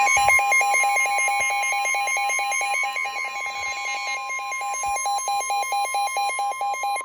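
Weather-radio alert tones ahead of a National Weather Service severe thunderstorm warning: a steady 1050 Hz warning alarm tone under a rapid, evenly pulsing beep. The beeping stops near the end while the steady tone holds on.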